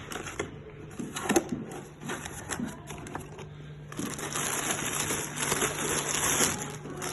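Packaging being handled while unpacking a boxed power tool: scattered clicks and knocks, then from about four seconds in a steady crinkling rustle of wrapping.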